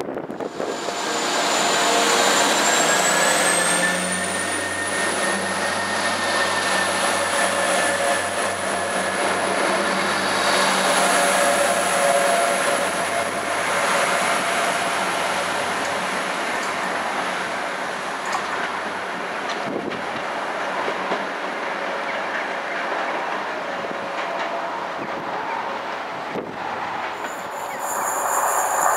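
Class 175 diesel multiple unit running under power at the platform: low engine drone with a high whine that rises in pitch over a few seconds and then holds steady.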